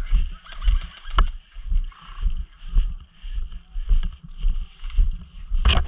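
Footsteps of a player walking, about two steps a second, each step a low thud with a light rattle of gear against the body-worn microphone; a louder knock near the end.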